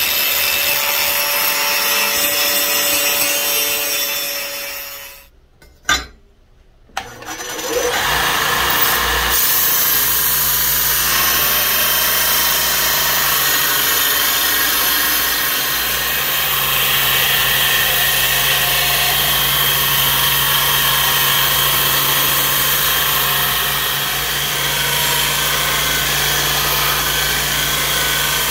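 Angle grinder with an abrasive cut-off disc cutting through a steel circular saw blade. The sound breaks off for about two seconds with a single click. Then a belt grinder runs with a steady motor hum as a steel knife blank is ground against the abrasive belt.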